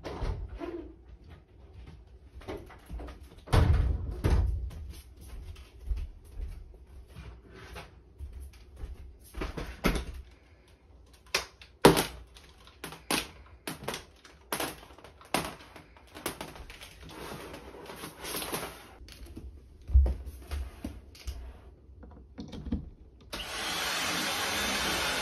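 Scattered knocks, clicks and thumps as a corded stick vacuum cleaner is picked up and handled. About 23 seconds in, the vacuum switches on and runs with a steady whooshing hiss.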